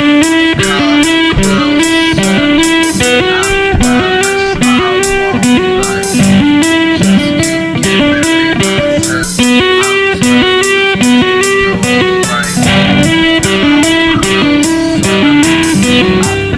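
Music: a repeating electric guitar riff over a steady drum beat.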